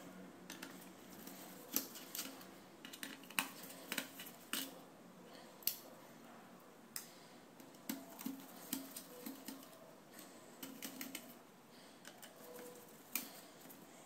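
Small, sharp clicks and taps at irregular intervals, from gloved hands handling parts inside an opened Lenovo ThinkPad R61i laptop: plastic and metal pieces knocking and snapping.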